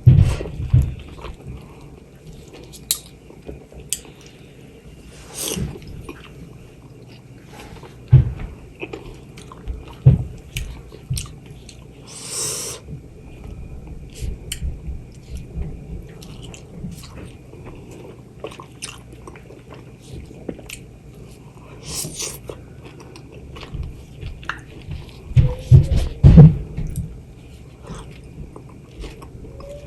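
A person chewing and biting juicy mango with wet mouth clicks and smacks, louder bites about eight seconds in and again near the end.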